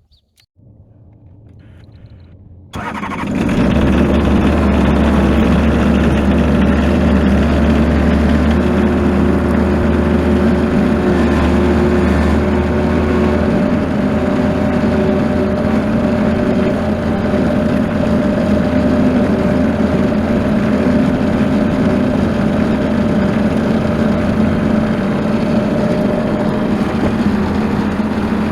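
Bobcat skid steer engine catching about three seconds in and then running steadily, with a deep low hum that eases about thirteen seconds in.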